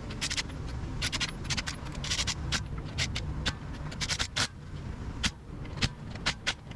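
Hand tools and metal parts clinking and scraping in short, irregular strokes during reassembly work in a car's engine bay, over a steady low rumble.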